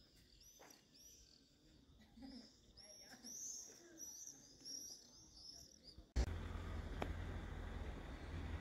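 A flock of swifts calling overhead: many shrill chirps that rise and fall, overlapping and coming thick and fast. About six seconds in, this cuts off abruptly and a louder, steady rushing noise with a deep rumble takes over.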